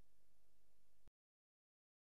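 Near silence: a faint, steady hiss with a low hum, the noise floor of a silent film's soundtrack, cutting off to dead silence about a second in.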